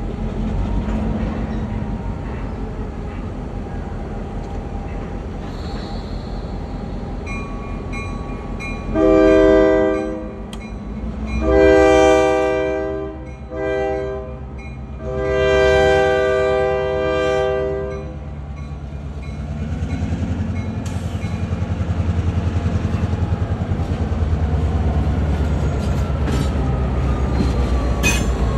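Diesel locomotive's multi-chime air horn sounding the grade-crossing signal, long, long, short, long, over its steady engine. Later the engine gets louder and pulses as the locomotive rolls slowly past close by.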